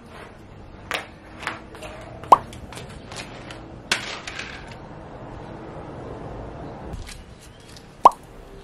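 Two short rising 'plop' pop sound effects, one about two seconds in and a louder one near the end, with scattered light clicks and knocks between them.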